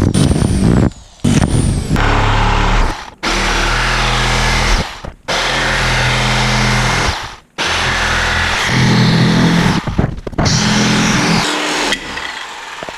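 Power tools cutting wood: an electric drill boring through a wooden board at first, then an electric jigsaw sawing out small wooden spacers in several runs with short stops between. It is quieter near the end.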